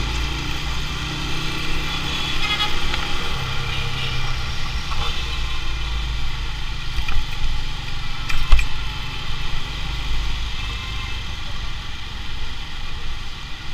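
Motorcycle engine running steadily as it rides through city traffic, with road noise and other vehicles around. A single sharp knock about eight and a half seconds in.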